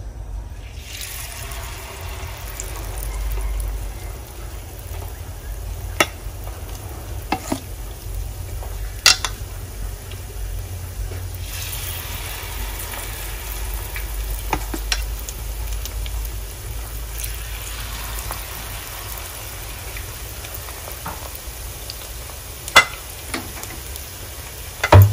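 Small-shrimp batter fritters sizzling in hot oil in a frying pan, the hiss growing fuller about twelve seconds in as more batter goes in. A metal ladle clicks against the pan a few times, with a louder knock at the very end.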